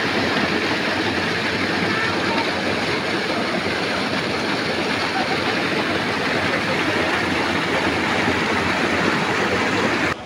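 White water rushing and churning over a small drop in a narrow creek: a steady, loud rush that cuts off abruptly near the end.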